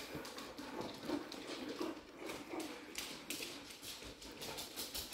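A dog's claws clicking irregularly on a hard floor as it moves about, quietly.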